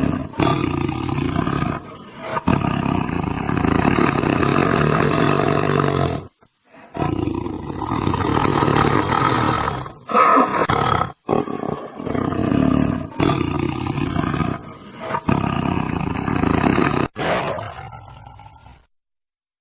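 Tiger roaring over and over: long, loud roars with short breaks between them, the last one trailing off and stopping shortly before the end.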